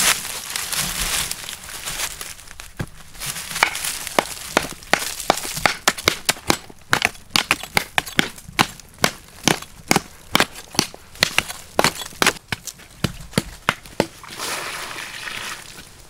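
Bamboo poles jabbing into hard, dry earth to dig a hole: a fast run of sharp knocks, about two to three a second, with rushing scrapes of loose soil being scooped near the start and near the end.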